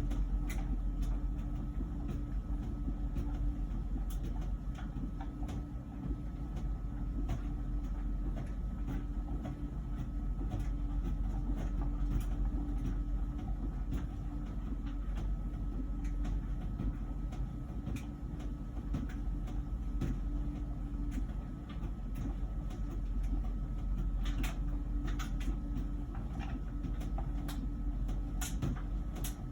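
LG Wash Tower heat pump ventless dryer running mid-cycle: a steady low rumble with a faint steady hum above it and occasional light clicks.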